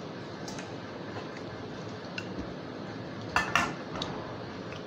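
Fingers working rice and curry on plates, with light clicks against the plates and two sharper clinks close together about three and a half seconds in.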